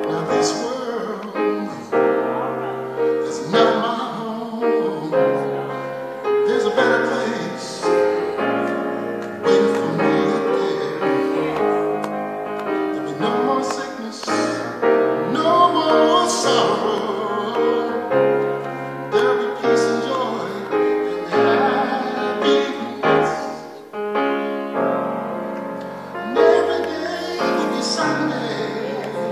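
Grand piano played in a slow, flowing style, with a man singing along to his own accompaniment.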